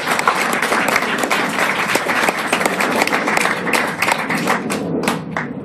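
A crowd applauding, dense clapping that thins out to a few scattered claps near the end.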